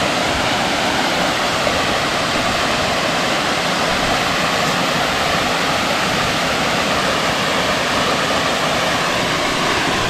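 Steady rushing of a small waterfall, water cascading down a rock face into a pool.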